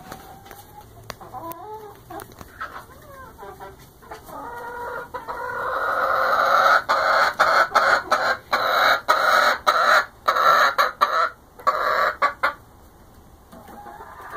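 A flock of hens clucking and squawking: scattered soft calls at first, then a loud, sustained burst of squawking from about five seconds in that dies down a second or two before the end.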